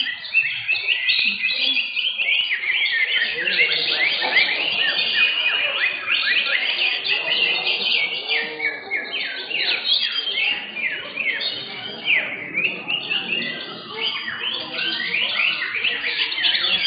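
Several caged greater green leafbirds (cucak hijau) singing at once: a dense, unbroken chatter of quick falling notes, with a murmur of human voices underneath.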